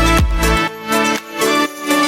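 Electronic background music with a steady beat about twice a second and sustained synth chords. The beat drops out about a quarter of the way in, leaving the held chords.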